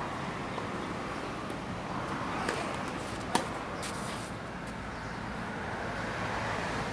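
Tennis rally: a faint ball-on-racket pop about two and a half seconds in, then a sharp, loud racket strike a little under a second later, over steady outdoor background noise.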